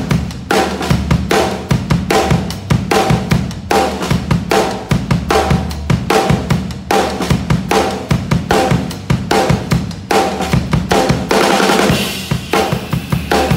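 Acoustic drum kit played to a steady beat, with bass drum and snare hits. Near the end a cymbal is struck and rings on under the continuing hits.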